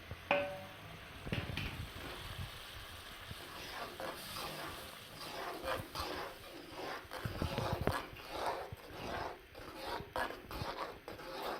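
A spoon stirring and scraping spices into fried onions in a cooking pan in repeated strokes, with a sharp knock and a brief squeak near the start.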